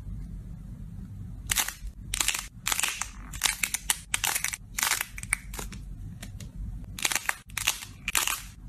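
Crunchy slime moulded into lollipop balls, squeezed and crushed between the fingers, giving bursts of crackling. The crackling starts about a second and a half in, comes in quick clusters, pauses around six seconds and resumes near seven seconds.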